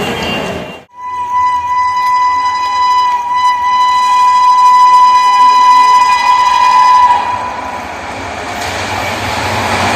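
Indian Railways WAP-7 electric locomotive horn blowing one long steady note for about six seconds, then fading. Rolling train noise cuts off abruptly just before the horn and builds again near the end.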